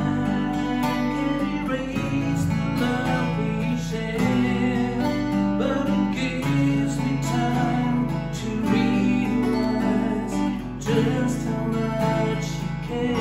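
Two acoustic guitars played live together in an instrumental passage, strummed and picked in a steady rhythm.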